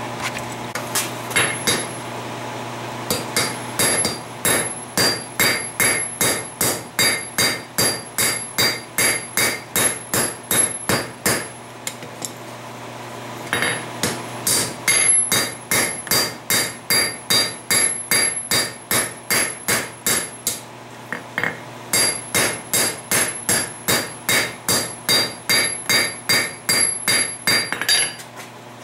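Hand hammer striking red-hot steel on an anvil in a fast, steady rhythm, about three blows a second, each with a bright metallic ring, with a short pause about twelve seconds in before the hammering resumes. The hot end of a ball peen hammer head is being drawn out, stretched wider and flatter. A steady low hum runs underneath.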